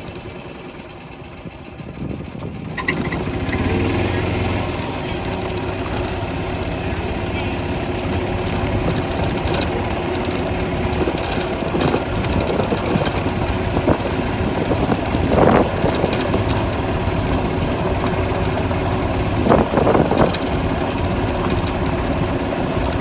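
Golf cart driving along a gravel road, its motor and tyres running steadily after picking up about three seconds in. A couple of short louder noises stand out around the middle and near the end.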